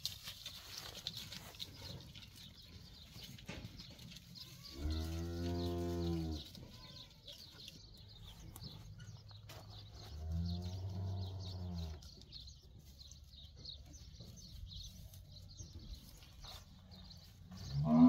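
Goats bleating: two long, low calls, each about one and a half seconds long and a few seconds apart, with a third just beginning at the very end.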